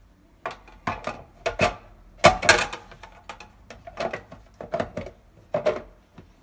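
Parts of a water ionizer being handled during reassembly after a filter change: a series of about eight knocks and clatters, the loudest a little over two seconds in.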